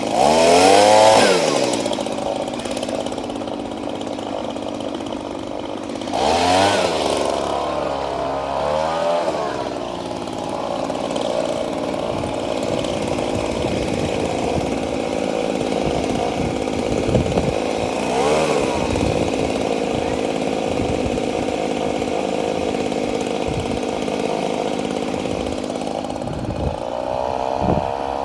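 A small petrol engine running steadily and revving up and back down several times: near the start, about six seconds in, again briefly about eighteen seconds in, and once more near the end.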